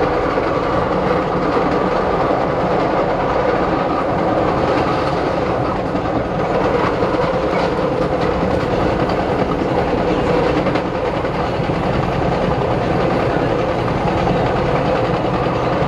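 A 1992 Morrison-Knudsen 3200-series rapid transit car running at speed, heard from inside the car: the steady rumble of wheels on rail and the car's running noise.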